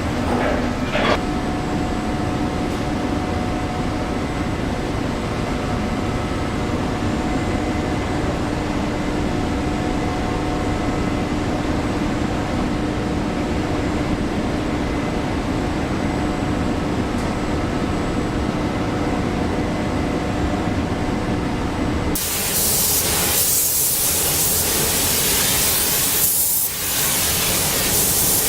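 Steady factory production-line machinery noise with a constant hum of several steady tones. About three-quarters of the way in it cuts suddenly to a louder, bright hiss.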